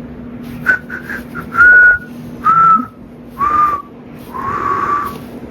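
A person whistling a short tune: a few quick notes, then four longer held notes, each stepping down in pitch. A steady low hum runs underneath.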